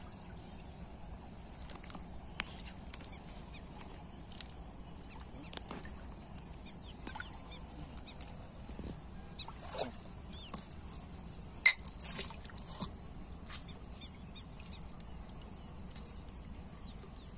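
Outdoor ambience: a steady high-pitched insect drone, with scattered sharp clicks and a few short calls of domestic fowl.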